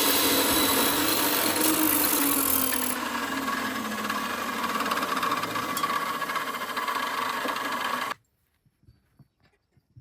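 An electric power tool running steadily under load, its pitch sinking slightly over the first few seconds; it starts and stops abruptly, about eight seconds in.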